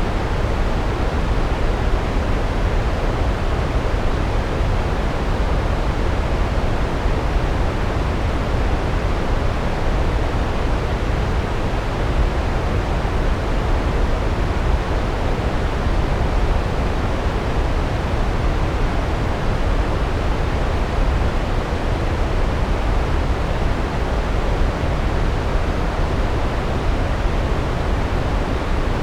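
Large waterfall, a steady deep rush of falling water with the most weight in the low end and no breaks or changes.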